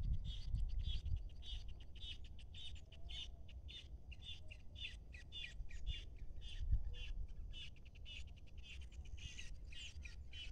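A bird calling over and over, a short wavering call about two to three times a second, over a low rumble of wind on the microphone.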